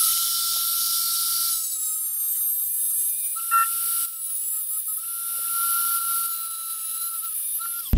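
Dremel rotary tool with a small abrasive cut-off wheel grinding through a steel link pin of a motorcycle engine's timing chain. The motor gives a steady high whine under a hissing grind that swells and eases as the wheel bears on the metal. It cuts off abruptly at the end.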